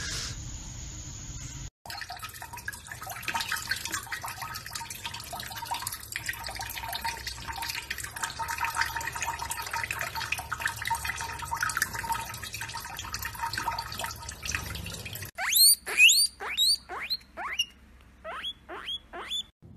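Water from a kitchen tap running steadily into cupped hands in a sink. Near the end a guinea pig gives about ten short, high squeaks, each rising sharply in pitch, in two quick runs.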